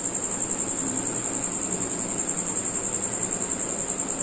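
A continuous high-pitched insect trill, like a cricket's, with an even soft hiss beneath it.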